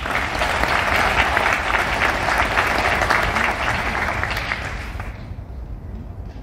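Audience applauding, many hands clapping together, fading away about five seconds in.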